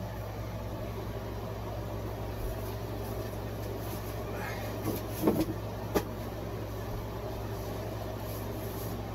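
Cardboard packaging handled as an AV receiver is worked out of its shipping box, with a few short knocks about five and six seconds in, over a steady low background hum.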